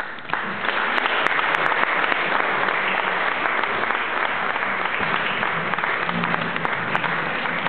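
Audience applauding, starting suddenly and going on steadily.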